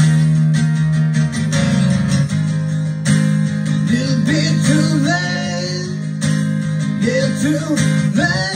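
Recorded song playing: strummed guitar chords, with a voice singing phrases that come in about four seconds in and again near the end.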